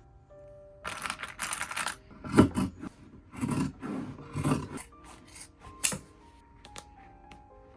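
Sewing work sounds: fabric rubbing and scraping in a series of short, irregular bursts, then a few light clicks near the end, over soft background music.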